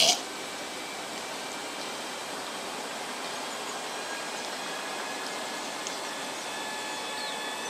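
Steady outdoor background hiss, opening with a brief loud hiss right at the start. Faint sustained tones creep in during the second half and grow slightly toward the end.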